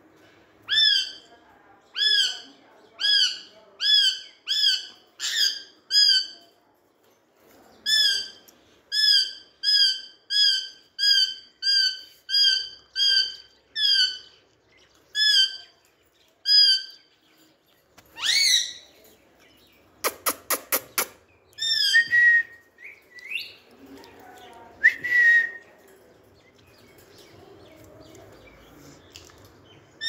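Pet parakeet calling: a long series of short, identical sharp calls, one or two a second. Past the middle comes one loud rising screech, then a quick run of clicks and a few more calls before it goes quiet.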